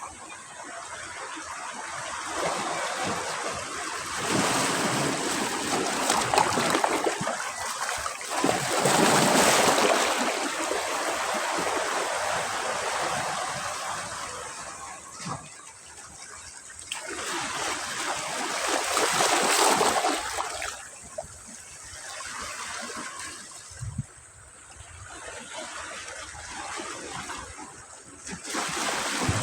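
Sea waves breaking and washing up on a beach, the surf swelling and falling away in several surges.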